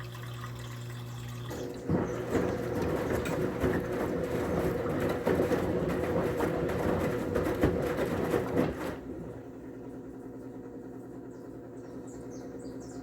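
Whirlpool Clean AWM 468 washing machine in its intermediate rinse: water rushing and splashing inside the machine over a steady hum. It gets louder about two seconds in and drops back down after about nine seconds.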